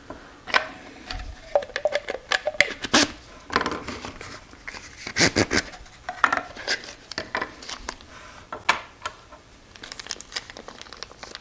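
Hands handling small steel lathe tool holders and hard plastic packaging tubes on a wooden bench: irregular clicks, taps and knocks, with plastic wrap rustling near the end.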